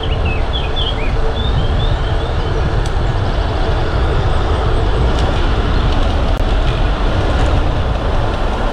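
Steady wind rush and low rumble on the microphone of a bicycle going downhill fast, mixed with road and tyre noise. Short high chirps sound during the first second or so.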